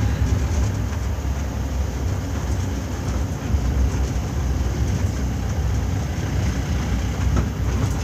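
Steady engine rumble and road noise of a moving safari jeep, heard from inside the cabin.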